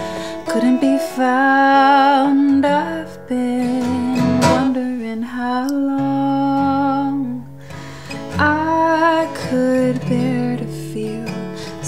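Acoustic guitar playing with a woman singing over it in long, wavering held notes, phrase by phrase.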